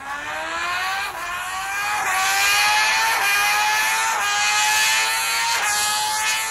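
Sport motorcycle engine revving through a long dyno pull, its pitch climbing steadily for several seconds, heard as recorded playback from a video.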